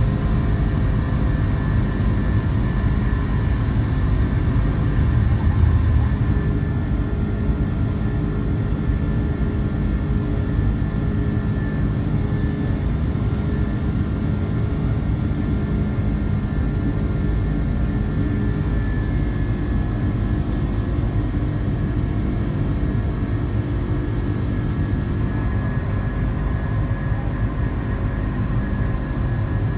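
Jet engines of an Airbus A330-300 airliner running, a steady loud low rumble with a faint steady whine above it.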